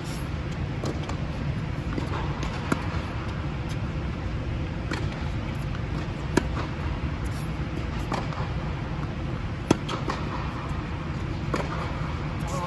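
Tennis balls struck back and forth in a light rally: sharp racket-on-ball pops every second or two, some close and loud, others fainter from the far side of the court. A steady low hum runs underneath.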